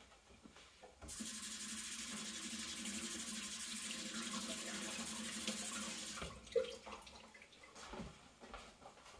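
Kitchen tap turned on and running for about five seconds to wash something off, then shut off, followed by a single short knock.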